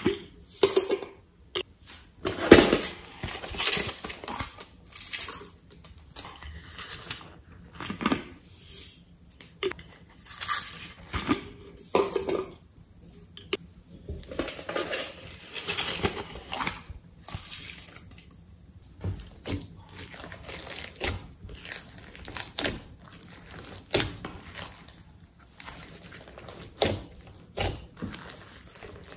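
Close-up handling sounds of slime making: plastic piping-bag bottles and containers handled and set against a glass baking dish, then hands pressing clay into sequin-covered slime. Irregular clicks, taps and small crackles throughout.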